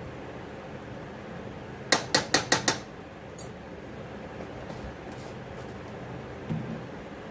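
A metal utensil tapped sharply five times in quick succession against a cooking pan, then a single duller knock near the end.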